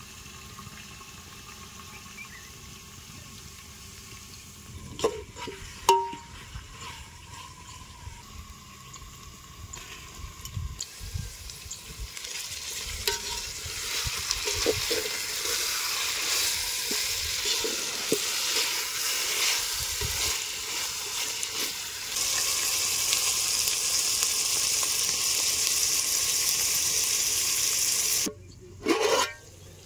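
Food frying and sizzling in a pan or pot, with a metal utensil clinking against it twice at first. The sizzling builds from about halfway, gets louder again later, then cuts off suddenly near the end.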